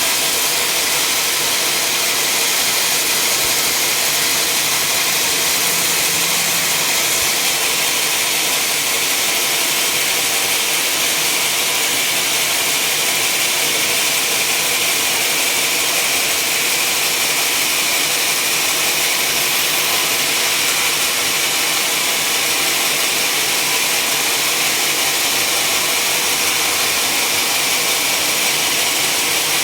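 Sawmill machinery running and cutting steadily: a loud, even, high-pitched rushing noise that never pauses or changes.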